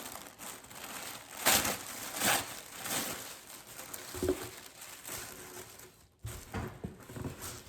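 Tissue paper crinkling and rustling as it is handled and pulled out of a box, with a few louder crunches in the first three seconds.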